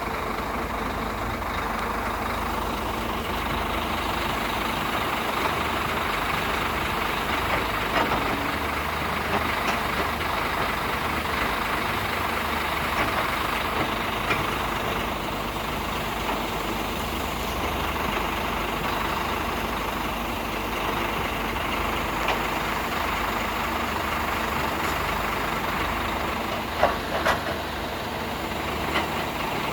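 Heavy diesel machinery running steadily, with a couple of sharp knocks near the end.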